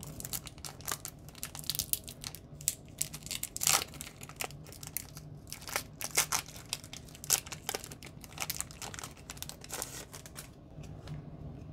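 Foil wrapper of a Pokémon Brilliant Stars booster pack being torn open and crinkled by hand: a dense run of sharp crackles and rips that thins out near the end.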